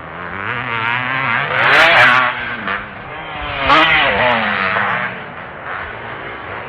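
Motocross bikes racing past with engines revving up and down. The engine pitch climbs and drops repeatedly, and the sound swells loudest twice, about two and four seconds in, as bikes go by close.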